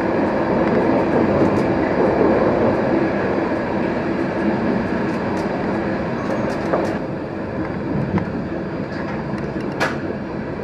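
Van Gölü Express passenger carriage heard from inside while under way: a steady rumble and rattle of the wheels on the track, with scattered light clicks and one sharper click near the end.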